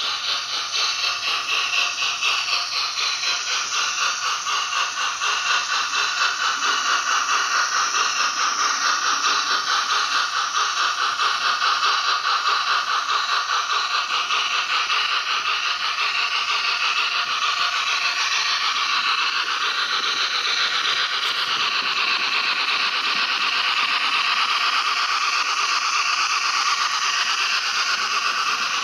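Hornby OO-gauge A4 steam locomotive's DCC sound decoder playing rapid steam exhaust chuffs through the model's small onboard speaker. The beat quickens as the regulator is opened further.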